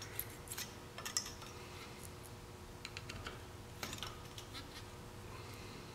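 Light, scattered metallic clicks and ticks of a wrench and screwdriver working a valve-lash adjuster screw and its lock nut on an ATV's rocker arms, the loudest click a little under four seconds in.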